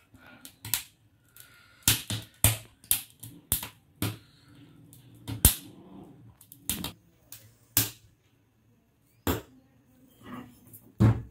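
Sweet-corn cob roasting directly over a gas burner flame, its kernels popping in a dozen or more sharp cracks at uneven intervals.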